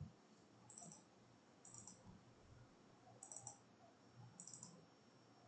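Faint computer mouse clicks, in four short clusters about a second apart, over near silence: double-clicks mapping finger bones.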